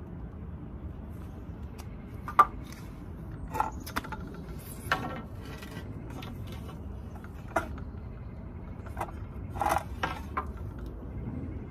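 Wood and tools being handled: irregular knocks and clacks, about nine in all, the sharpest one about two and a half seconds in, over a low steady rumble.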